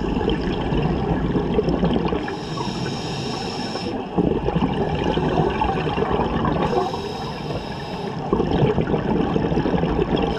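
A scuba diver breathing through a regulator: a short hissing inhale alternates with a longer, rumbling rush of exhaled bubbles, about once every four seconds. There are three exhales and two inhales.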